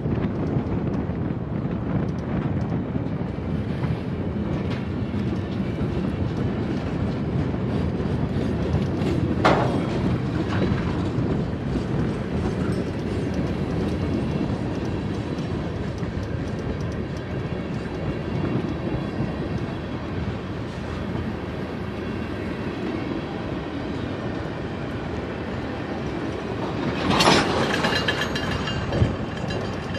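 Freight cars of a BNSF manifest train rolling past, their wheels making a steady rumble and clicking on the rails. A brief high wheel squeal rings out about ten seconds in, and a louder one near the end.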